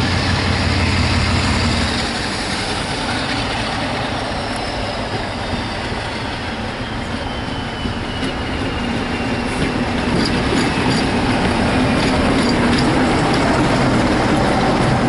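Diesel locomotive passing with its train of coaches, its engine running and wheels rolling on the rails, growing louder near the end as it draws alongside.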